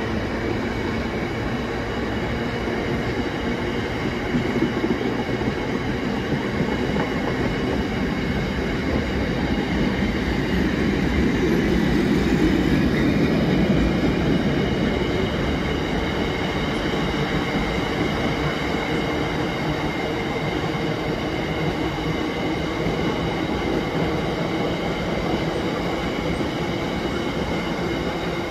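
Freight train of open box wagons rolling past on the rails: a steady rumble and rattle of wheels, swelling somewhat loudest around the middle, with thin steady high tones ringing over it.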